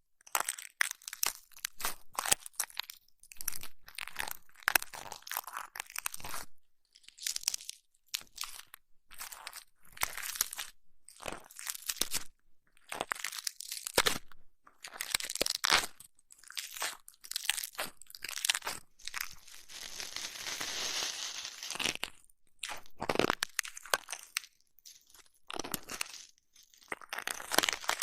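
Close-miked ASMR ear massage: crackly rubbing and crunching against the microphone, coming in irregular bursts, with one longer steady rubbing hiss a little past the middle.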